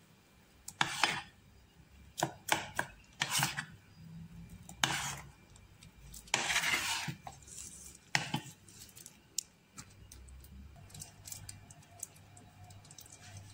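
Metal spoon stirring thick ube hotcake batter in a ceramic bowl: irregular scrapes and clinks of the spoon against the bowl, fewer in the last few seconds.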